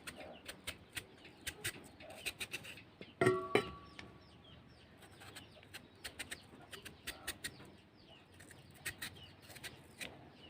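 Chickens clucking and small birds chirping in the background, with one louder pitched cluck about three seconds in. Scattered light clicks and taps run throughout.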